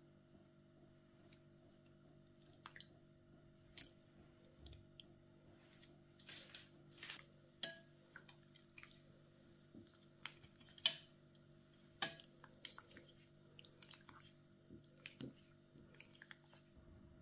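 Dishes and metal cutlery clinking and tapping in scattered, irregular strokes during kitchen food preparation, the sharpest clinks about eleven and twelve seconds in, over a faint steady hum.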